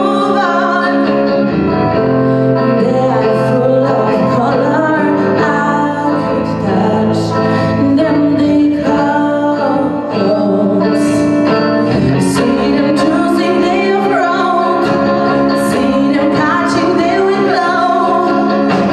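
Live rock band playing: a woman sings the lead vocal over electric guitars and a drum kit with cymbal crashes.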